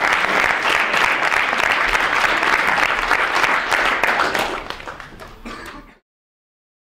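Audience applauding: a dense patter of many hands clapping that thins out after about four and a half seconds and cuts off abruptly near the end.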